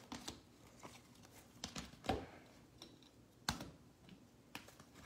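Rigid plastic top loaders holding trading cards, clacking faintly against each other and the tabletop as they are picked up and stacked: a handful of scattered light clicks.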